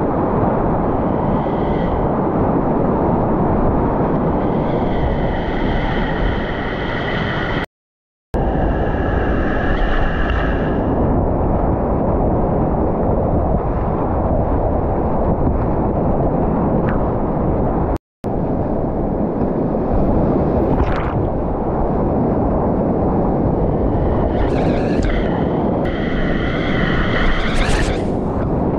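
Loud, steady rushing of a flooded whitewater river heard up close from a kayak running its rapids, with water crashing over the camera near the end. The sound cuts out to silence twice, briefly, about 8 and 18 seconds in.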